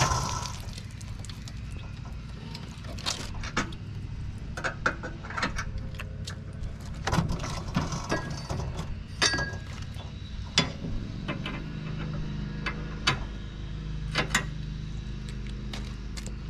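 Scattered clinks, clicks and knocks of metal gear being handled, over a steady low engine hum.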